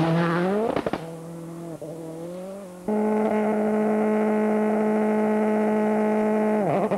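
Peugeot 206 WRC's turbocharged four-cylinder engine: first a note rising in pitch as the car passes at speed, then, at a stage start line, a quieter idle that jumps about three seconds in to high revs held dead steady for nearly four seconds, dipping and wavering near the end.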